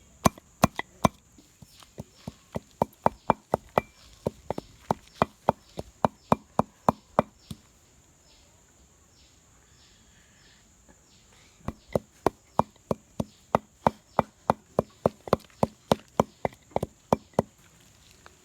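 Rapid chopping with a blade on wood, about three strokes a second in two runs with a pause of about four seconds between them. A steady high insect buzz runs underneath.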